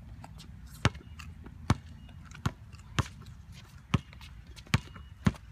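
Basketball dribbled on an outdoor hard court: about seven sharp bounces, a little under a second apart.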